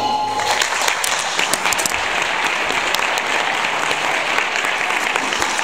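Audience applauding steadily, a dense patter of clapping hands. The last held note of the song fades out in the first half second.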